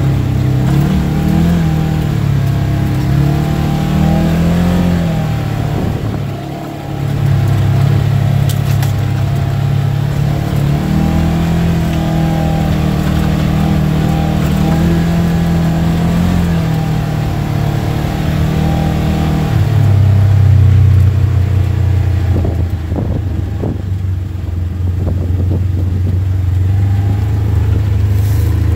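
Polaris General side-by-side's engine running under the rider as it crawls along a rough dirt trail, its pitch rising and falling with the throttle. It eases off briefly about six seconds in and pulls harder a little past the middle.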